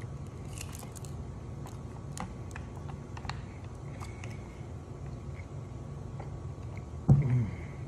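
Faint scattered clicks and crinkles of a plastic straw being unwrapped and poked through the foil of a Kool-Aid Jammers drink pouch, then a brief, loud, low-pitched sound near the end while drinking from it.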